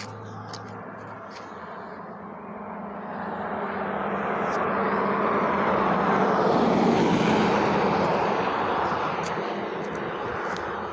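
A passing vehicle, its noise swelling to a peak about seven seconds in and then fading away.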